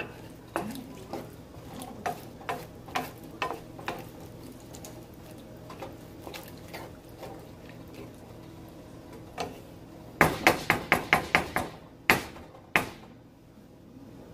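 A utensil stirring chickpeas in coconut-milk sauce in a pan, clicking and scraping against the pan now and then. Near the end comes a quick run of about eight sharp taps on the pan, then two more knocks, the loudest sounds here, over a faint steady hum.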